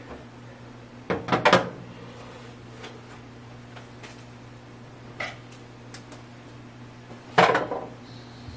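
Kitchen utensils and dishes being handled: a quick cluster of clattering knocks a little after a second in, a lighter knock midway, and another loud knock near the end, over a steady low hum.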